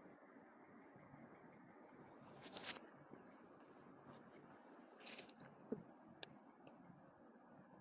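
Near silence: a faint steady high-pitched tone over low hiss, with a few light clicks, the loudest about a third of the way in.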